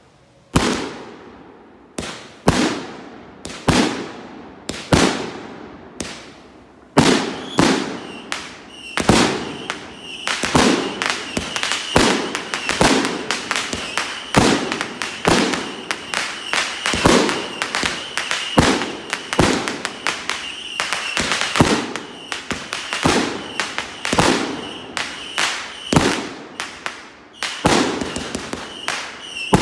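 Consumer fireworks firing from the ground: single sharp bangs about once a second at first, then from about seven seconds in a dense, fast run of pops and crackles, with a thin high steady whistle-like tone running through the middle of it.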